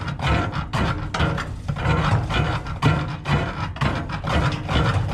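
Hands scraping and scooping leftover grain and chaff out of a combine harvester's sieve housing: an irregular rubbing and rasping against the metal, in short uneven strokes.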